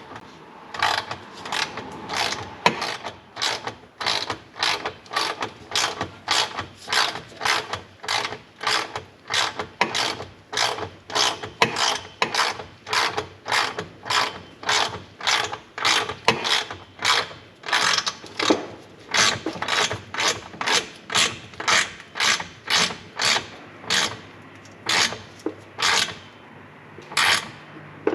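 Hand ratchet wrench being worked in steady back-and-forth strokes, about two a second, tightening the nuts on exhaust clamps.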